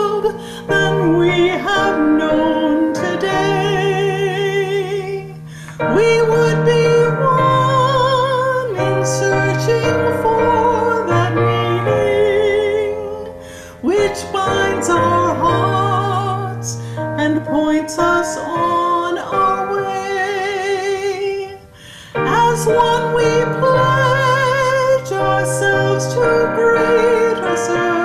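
A woman singing a hymn solo, holding long notes with vibrato, over instrumental accompaniment.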